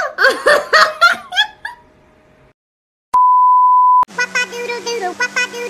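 A few seconds of short bursts of laughter, then a brief silence and a steady high test-tone beep lasting about a second. Music starts right after the beep.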